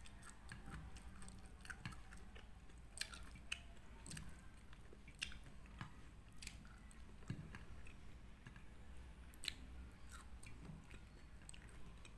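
Close-miked chewing of kimbap, a seaweed-wrapped rice roll, with irregular short sharp clicks one to three times a second.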